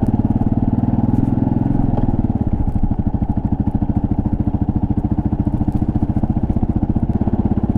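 Single-cylinder engine of a 2024 Kawasaki KLR650 S dual-sport motorcycle running under way at a steady pace, its firing pulses even, pulling a little harder for a moment about a second in.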